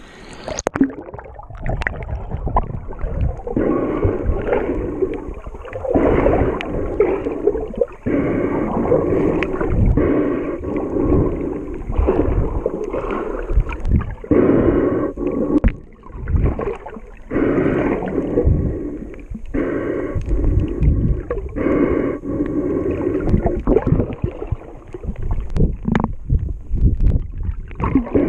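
Underwater sound picked up by an action camera in its waterproof housing: muffled sloshing and gurgling of water that rise and fall in surges every second or two as the snorkeler swims. The camera dips under the surface about a second in, and the sound turns dull and muffled from then on.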